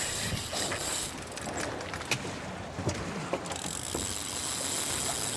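Fishing reel clicking as a freshly hooked tarpon pulls line off against the drag.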